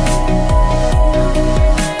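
Electronic music: deep kick drums that drop in pitch, about two beats a second, under held synth chords.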